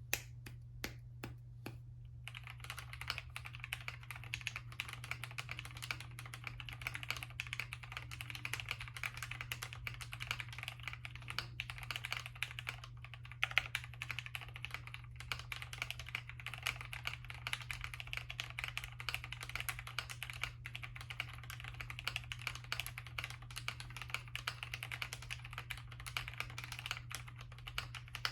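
Typing on a custom mechanical keyboard with lubed vintage Cherry MX Black linear switches in a POM plate: a few separate keystrokes, then, about two seconds in, a fast, continuous stream of key clacks. A steady low hum runs underneath.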